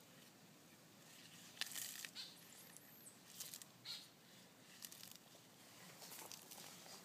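Galapagos giant tortoise biting and tearing leafy greens held out to it: a few faint, short crunches and leaf rustles with quiet gaps between, the first about a second and a half in.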